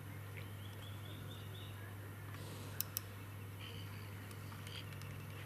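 A steady low hum with a bird chirping faintly in short quick runs of notes, and two sharp clicks about three seconds in.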